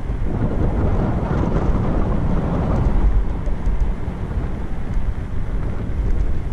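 Wind buffeting the microphone of a camera riding on a moving bicycle: a loud, steady, gusting low rumble.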